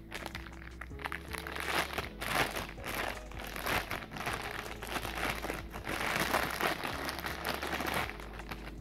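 Packaging crinkling and rustling in repeated bursts as parts are unwrapped, over background music; the rustling stops shortly before the end.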